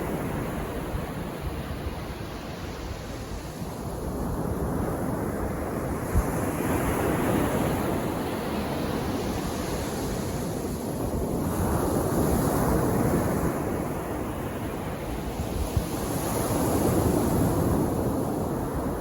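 Calm sea waves washing onto a beach, swelling and easing about every five seconds, with some wind noise on the microphone.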